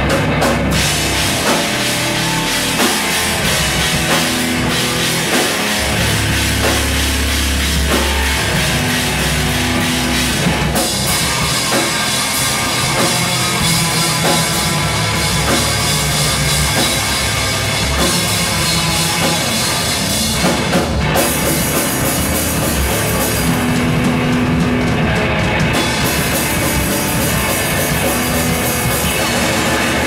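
Loud live rock band playing: electric guitars over a drum kit with cymbals, with the music changing section about a third and two thirds of the way through.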